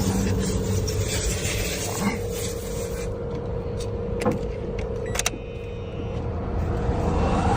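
Car engine running steadily, with two sharp clicks in the middle.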